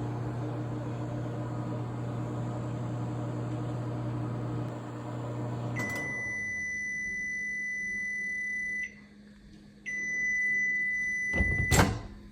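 Frigidaire FFMV1846VS over-the-range microwave oven running with a steady hum, which stops with a click about six seconds in. Two long, high beeps follow, the signal that the heating is done, and a loud clunk comes near the end.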